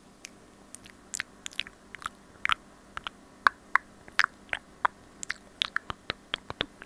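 ASMR mouth sounds made right into an earphone-cable microphone held at the lips: irregular wet clicks and smacks of lips and tongue, sparse at first and coming thick and fast from about a second in.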